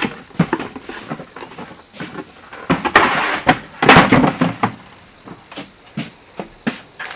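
Cardboard toy box and its packaging being unpacked by hand: rustling and crinkling with scattered knocks, loudest about three to five seconds in.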